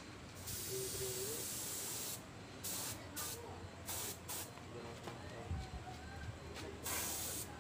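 Compressed-air spray gun spraying clear coat: a long hiss of air and paint mist, then several short bursts as the trigger is pulled and released.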